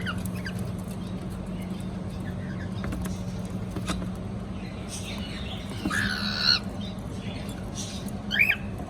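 Cockatiel calling: a short chirp at the start, a harsh, drawn-out call about six seconds in, and a sharp rising chirp near the end, over a steady low hum.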